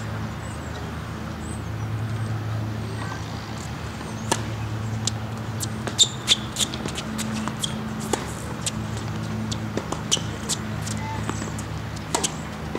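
Tennis point in play: sharp pops of racket strings striking the ball and the ball bouncing on a hard court, starting about four seconds in after the serve. A steady low hum runs underneath.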